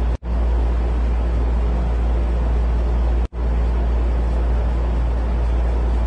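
A steady, loud, deep rumbling drone with a hiss of noise above it. It cuts out for an instant twice, just after the start and again about three seconds later.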